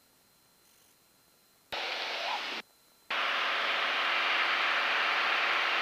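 Piper PA-28 Warrior's engine and propeller drone with airflow hiss, heard through the cockpit intercom. The track is almost silent at first. The drone cuts in abruptly about two seconds in, drops out for about half a second near the three-second mark, then comes back and holds steady, as an intercom does when its voice-activated squelch opens and closes.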